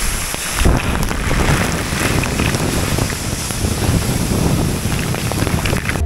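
Steady rush of falling water from a waterfall, with wind buffeting the microphone.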